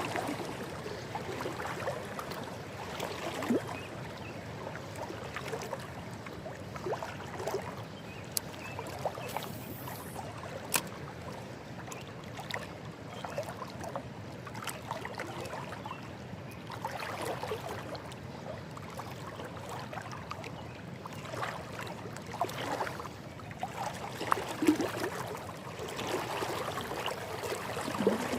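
River water lapping and flowing, with scattered small clicks and a few sharper knocks from handling gear.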